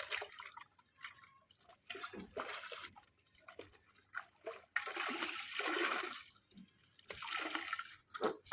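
Water sloshing and splashing in irregular bursts as laundry is rinsed by hand in a basin, the longest and loudest about five to six seconds in.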